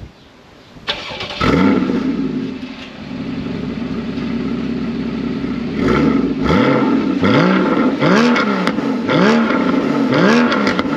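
Porsche 981 Cayman GTS 3.4-litre flat-six starting: a brief crank about a second in, catching with a loud flare, then settling to a steady idle. From about halfway on, a series of short throttle blips, the revs rising and falling roughly every half second.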